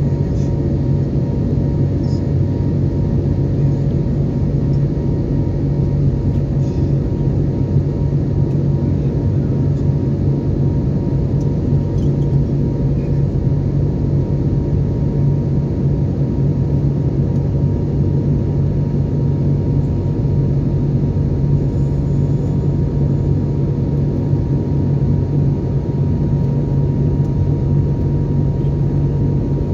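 Steady airliner cabin noise in flight: the constant low rumble of the jet engines and airflow heard inside the cabin, with a faint steady hum over it.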